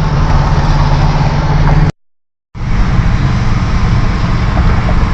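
Steady low rumble of road and engine noise inside a moving car, broken about two seconds in by half a second of dead silence where the recording cuts out.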